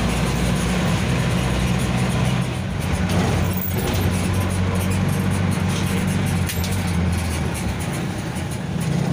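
Jeepney's engine running and road noise heard from inside the open passenger cabin, the engine note dipping briefly about two and a half seconds in and again near the end.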